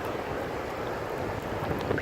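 Ocean surf washing steadily, with wind on the microphone: an even rushing noise.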